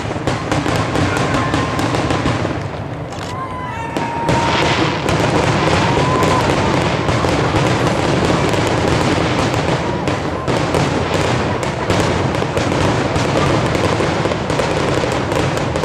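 Fireworks going off in rapid, continuous bangs and crackles, a dense barrage typical of a display's finale. A wavering whistle sounds over it about four seconds in.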